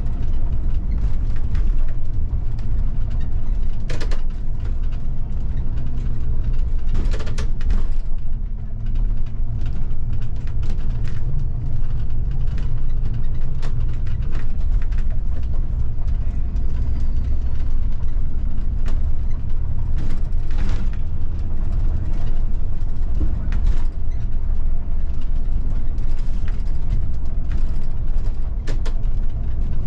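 Bus driving, heard from the driver's cab: a steady low engine and road rumble, with scattered clicks and creaks from the body and fittings.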